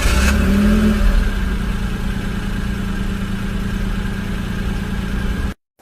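Taxi's car engine idling steadily, with a slight rise in pitch about half a second in. It cuts off suddenly near the end.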